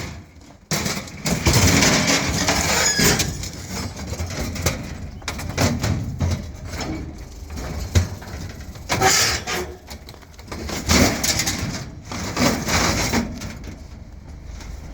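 Scrap items being handled and loaded: an irregular run of knocks, clatter and scraping, with one sharp strike about halfway through.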